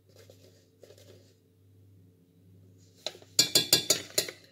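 A metal teaspoon clinking against a stainless steel pot in a quick run of sharp taps lasting about a second near the end, knocking ground cinnamon off the spoon into the pot. Faint soft rustling from the spoon and spice packet comes before it.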